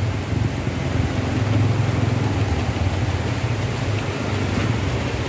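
Steady low rumble of road traffic, with a running engine's hum underneath.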